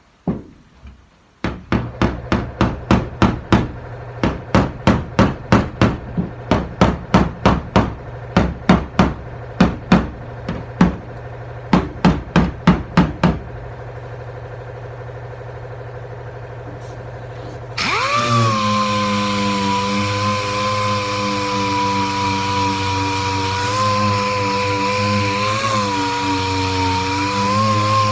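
Body hammer striking the sheet-steel quarter panel, about two to three blows a second for roughly twelve seconds, working a crease out of metal warped by welding, over a steady low hum. About 18 seconds in, a power tool starts and runs steadily with a high whine and hiss, its pitch dipping slightly now and then under load.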